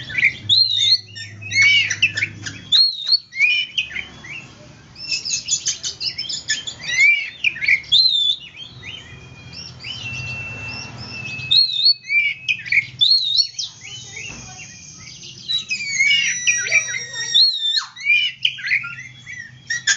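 Oriental magpie-robin (kacer) in full song: a loud, varied run of slurred up-and-down whistles and fast chattering phrases, with a few long held whistles about halfway through.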